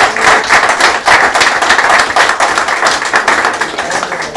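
Audience applauding: many people clapping by hand, a dense patter that eases a little near the end.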